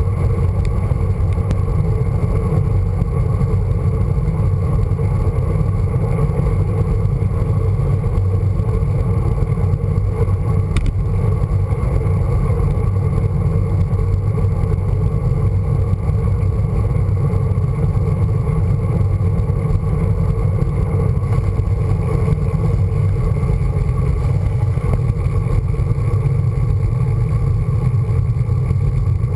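Steady low rumble of wind on the microphone and tyre noise on tarmac, picked up by a camera mounted on a road bike's handlebars while riding along at speed.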